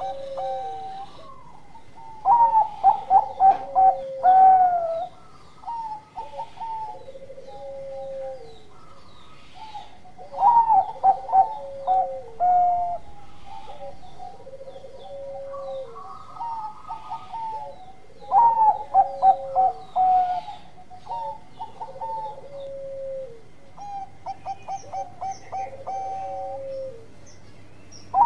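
Zebra dove (perkutut) of the Bangkok line singing its song. About every eight seconds comes a loud, rapid run of short staccato coos, then a string of lower, drawn-out coos, repeated four times.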